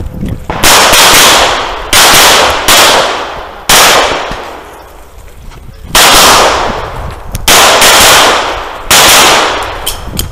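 Seven handgun shots fired at an uneven pace, each followed by a long echo that dies away. Three come quickly one after another in the first half, and after a pause of about two seconds three more follow at slower intervals.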